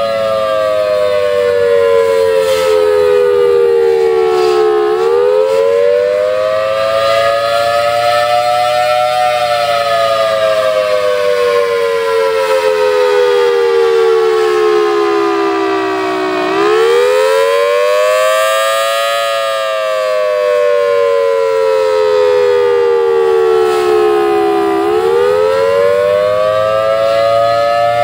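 Federal Signal Thunderbolt 1000 outdoor warning siren sounding a steady two-tone alert. Its pitch sinks slowly for several seconds, then swings back up quickly, about every eleven seconds. The uploader says a bad blower capacitor is making it lose volume.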